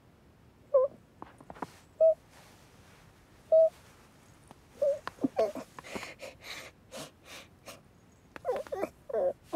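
Cartoon cat's short mewing calls, four of them spaced a second or more apart, then rustling and scrabbling as it wriggles inside a fabric draught excluder, and a quick flurry of strained calls near the end.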